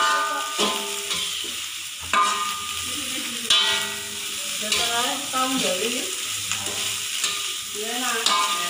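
Fried rice sizzling in a metal wok while a metal spatula repeatedly scrapes and strikes the pan, some strokes leaving a short metallic ring.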